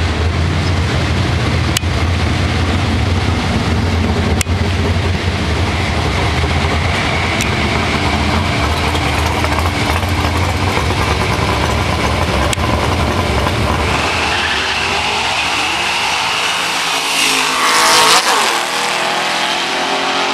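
Two drag cars, a Chevy Chevelle and a supercharged fifth-generation Camaro SS with its V8, rumbling at the starting line, then launching at full throttle about three-quarters of the way in. The engines rise to their loudest as they leave and fall away in pitch as the cars run off down the strip.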